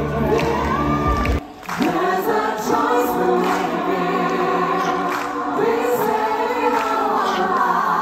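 Music with singing voices, the low end dropping out briefly about a second and a half in.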